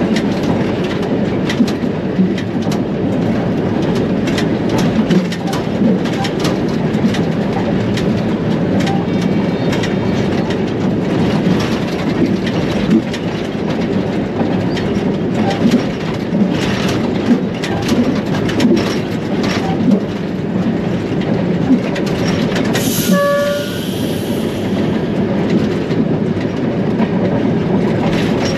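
ALCO diesel-electric locomotive running, heard from inside its cab: a steady engine drone with the wheels clicking irregularly over the rail joints. About 23 seconds in, a short horn note sounds.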